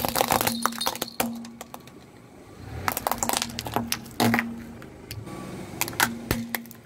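Hard plastic toy rattle cracking and crunching under a car tyre as the tyre rolls over it. The sound comes in several clusters of sharp cracks and clinks as the plastic shatters.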